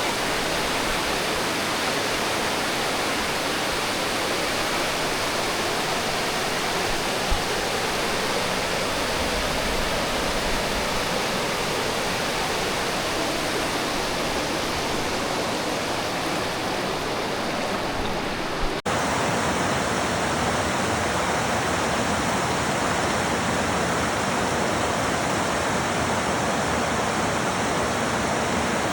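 Waterfall rushing steadily: water pouring over rock ledges in a continuous even rush. About two-thirds of the way through, the sound cuts abruptly to a slightly different take of the same rushing water.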